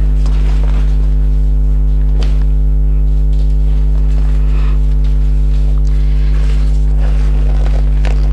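Loud, steady electrical mains hum with a stack of overtones. Under it are faint rustles and light knocks of hands working the kayak's fabric deck around the cockpit rim.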